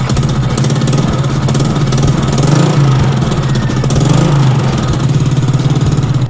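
Honda Wave 125i's single-cylinder four-stroke engine idling close to the microphone, with a steady, even pulse, rising slightly in speed twice.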